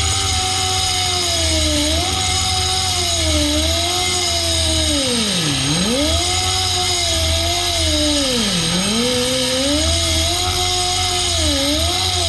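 Air-powered grinder spinning at high speed, a whine over a hiss, its pitch sagging again and again as it bogs under load and dropping deeply twice before spinning back up, while grinding metal off a C6 Corvette ZR1 brake caliper.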